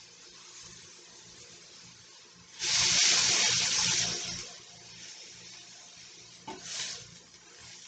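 A burst of hissing, rushing noise lasting about two seconds, starting a few seconds in, then a short click and a brief softer hiss near the end.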